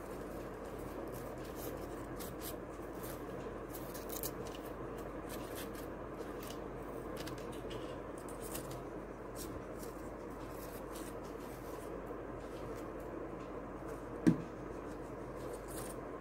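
Crepe paper rustling and crinkling in the hands as it is torn and wrapped onto a thin broomstick, over a steady background hiss. A single sharp knock near the end.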